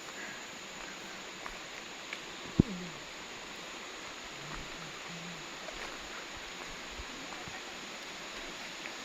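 Steady outdoor background hiss, with one sharp knock about two and a half seconds in.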